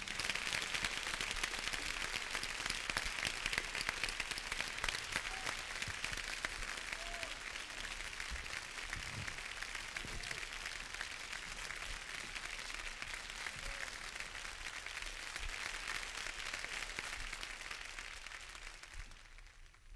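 Concert audience applauding, dense steady clapping that tapers off and fades out near the end.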